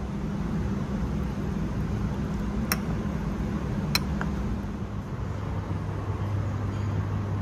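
Two short clinks of a metal spoon against a ceramic soup bowl, about a second apart near the middle, over a steady low hum.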